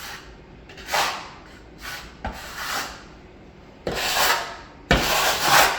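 Metal drywall knife scraping setting-type joint compound (speed mud), in about five short strokes, the loudest two near the end.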